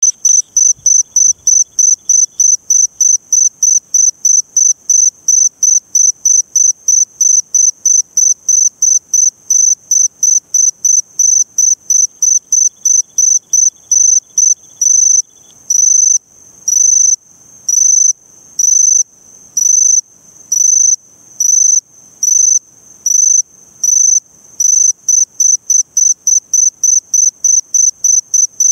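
Eurepella cricket calling: a run of short, high-pitched chirps about three a second, changing about halfway through to longer bursts roughly one a second, then back to short quick chirps near the end.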